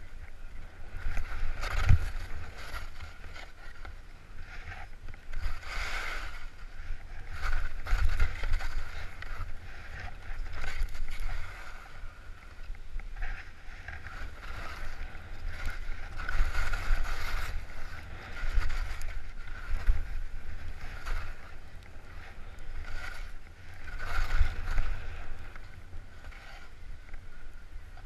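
Skis sliding and scraping over snow through a series of turns, each turn swelling into a swish, over a low rumble of wind on the camera microphone.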